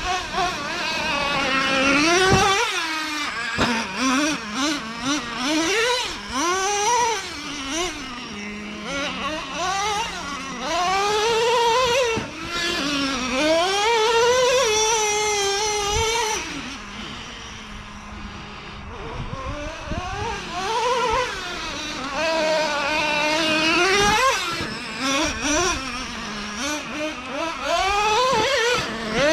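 Traxxas Revo 3.3's two-stroke TRX 3.3 nitro engine revving up and down again and again as the RC truck is driven, its pitch rising and falling with each throttle burst. It drops back to a steady low idle twice, about eight seconds in and again around seventeen seconds.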